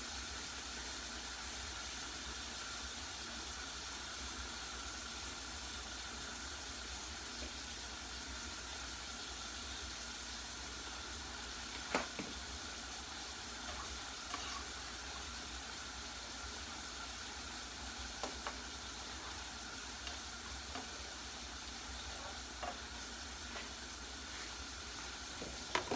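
Pork chops sizzling steadily in hot oil in a frying pan, with a few faint clicks and knocks here and there.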